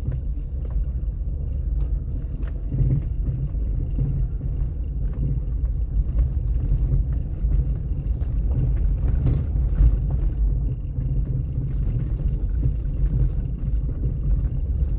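Inside a car's cabin while it drives slowly along a rough dirt road: a steady low rumble of engine and tyres, with small knocks and rattles scattered through it.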